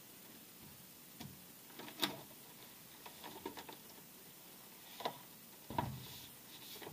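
Handling noise from a leather briefcase being opened and its contents moved: scattered soft knocks, rubs and clicks, with a sharp click about two seconds in and a duller knock near the end.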